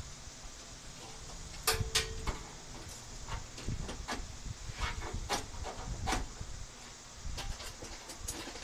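Scattered small clicks and taps of hand work at a truck grille while a butterfly drywall anchor is fitted, with a short squeak about two seconds in.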